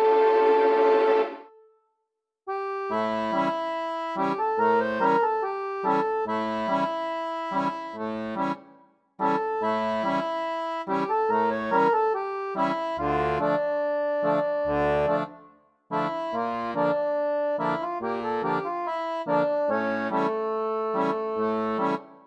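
Instrumental background music led by accordion over a repeating bass pattern, stopping briefly three times.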